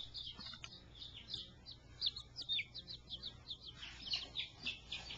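Baby chicks, five to eight days old, peeping: a quick, overlapping run of short, high chirps, each sliding down in pitch, several a second.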